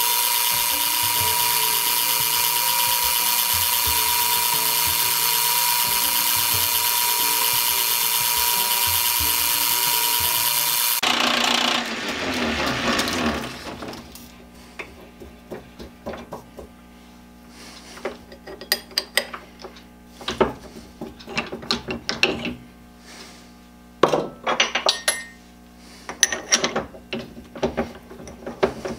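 South Bend 9C metal lathe running while a drill bit bores down the centre of a wooden handle held in its three-jaw chuck, a loud steady run with a high whine. About eleven seconds in it stops and winds down, followed by scattered clicks and knocks as the tailstock and drill are handled.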